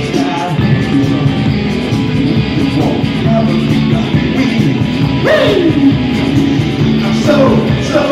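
A live rock band playing loudly, with distorted electric guitars, bass guitar and drums, recorded from the audience. A little past halfway a long slide falls in pitch.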